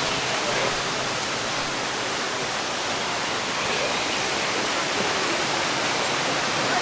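Steady rushing of falling water, as from a waterfall.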